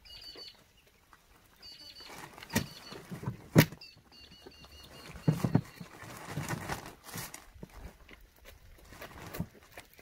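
Bags of garden mix being handled in a plastic wheelbarrow: plastic rustling and dull knocks, the sharpest knock about three and a half seconds in. A bird chirps in short repeated runs in the background during the first half.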